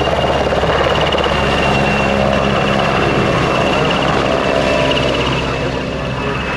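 PZL-Świdnik W-3A Sokol twin-turboshaft helicopter running, a steady high turbine whine over the rotor and engine noise, easing off slightly near the end.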